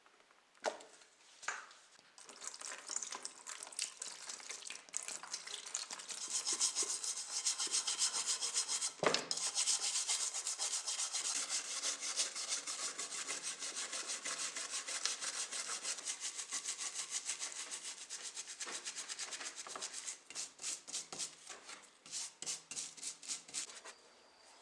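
Rapid back-and-forth abrasive rubbing on a scale model car's body, a fast hissing scrub with one knock about nine seconds in; near the end the strokes slow into separate, spaced strokes.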